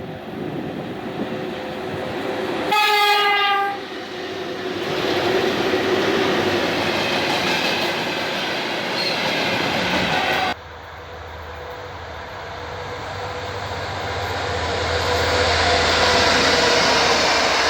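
Three-section VL80S electric locomotive giving a loud horn blast of about a second, around three seconds in, over the rumble of the moving train. After a sudden cut, a TEP70BS diesel locomotive approaches, its engine drone and rail noise growing steadily louder.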